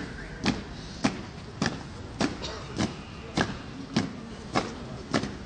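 Soldiers' boots stamping on stone paving in unison as a coffin-bearing honour guard marches in funeral-march step, a sharp stamp a little under twice a second, evenly spaced.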